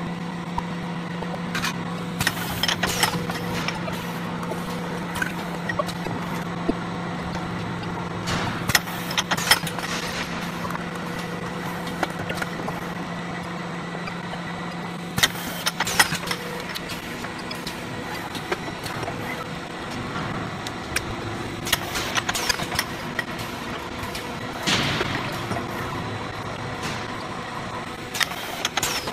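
Automatic molding press for resin grinding and cutting wheels running: a steady machine hum that drops out a little past halfway, with scattered sharp metallic clicks and clanks from the steel molds and press.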